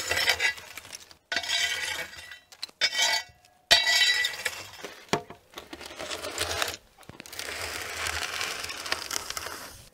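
Long metal tool scraping over the stone floor of a wood-fired oven, raking glowing embers with gritty scrapes and clinks in several short stretches. In the last few seconds a longer, steady scrape as a metal pan is pushed in across the oven floor.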